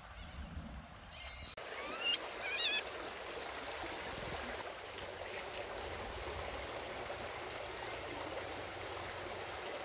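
Shallow, muddy stream water running and splashing steadily, with a few short, high, wavy calls about two seconds in.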